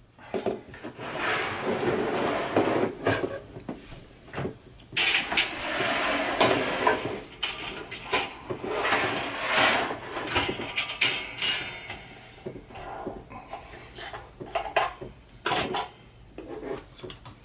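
Irregular clattering and rubbing of hard objects being handled, with many sharp knocks, busiest in two long stretches and then thinning out to scattered knocks.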